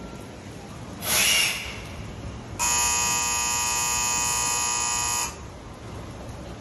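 Station platform departure buzzer giving one steady electric buzz for about two and a half seconds, then cutting off, signalling that the train is about to leave. It is preceded about a second in by a short hiss.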